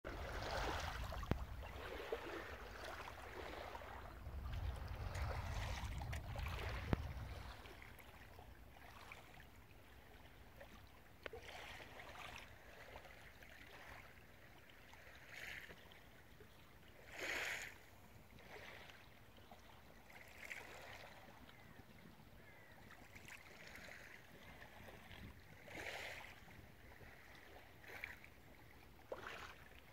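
Small lake waves lapping gently against the shore and pier, with soft splashes every few seconds. A low rumble fills the first several seconds.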